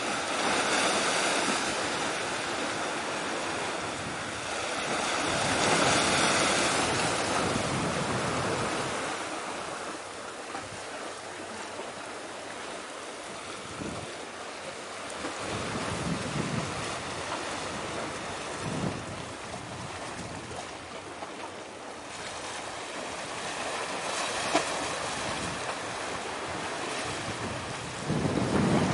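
Waves washing on the shore with wind buffeting the microphone, a rising and falling hiss that is loudest around six seconds in and again at the very end.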